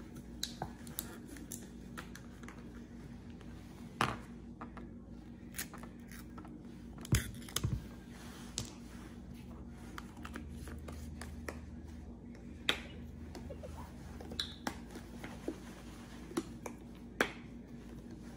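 Irregular light clicks and knocks over a steady low hum, with one sharper knock about 4 s in and a cluster of knocks around 7 s.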